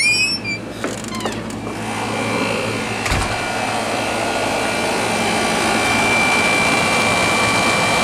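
Carrier International Series 27,500 BTU air conditioner running with its fan and compressor going: a steady rushing noise with a thin high whine, growing louder over the first few seconds and then holding. A brief squeak at the start and a single thump about three seconds in.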